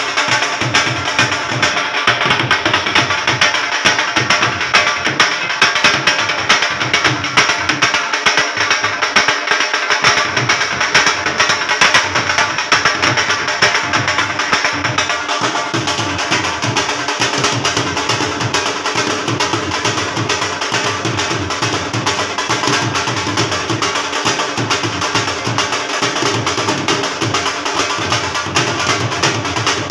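Dhol drums beaten in a fast, unbroken rhythm.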